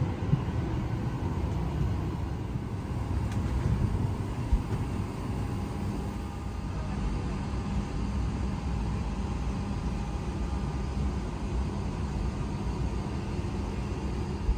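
Steady low rumble inside the cabin of a Boeing 737 MAX 8, with a faint steady hum over it and a couple of light knocks.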